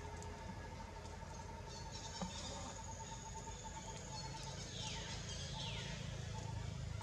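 Tropical forest ambience: a steady insect drone, joined in the middle by a high shrill insect trill, with two quick falling whistle-like calls from a bird near the end and a low rumble underneath from about four seconds in.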